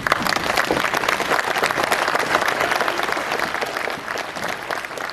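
Audience applauding: dense, steady clapping from a crowd that starts abruptly at the outset.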